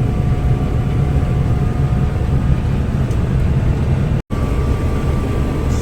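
Combine harvester running steadily while cutting oats: a constant heavy low rumble with a faint steady whine over it. The sound drops out for an instant about four seconds in.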